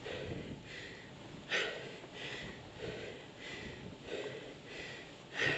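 A cyclist's heavy, rhythmic breathing while pedalling up a steep climb, a puff about every two-thirds of a second, with two sharper, louder exhales, one about a second and a half in and one near the end.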